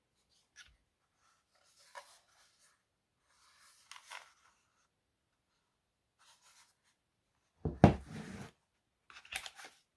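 Packaging being handled during an unboxing: brief scraping and rustling of cardboard and wrapping, then a louder thump with some rustling about eight seconds in, followed by a few small clicks and rustles near the end.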